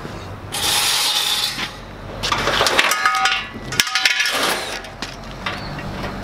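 Cordless drill running in three short bursts, backing screws out of the sheet-metal cabinet of an outdoor AC condenser unit.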